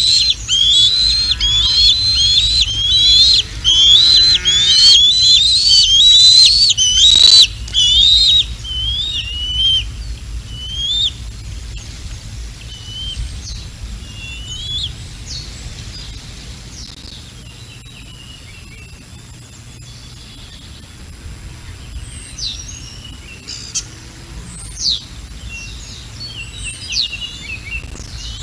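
Bald eaglet calling: a fast series of high, whistled chirps, about two a second, loud for the first ten seconds, then thinning out to scattered fainter calls. A single sharp knock comes about seven seconds in.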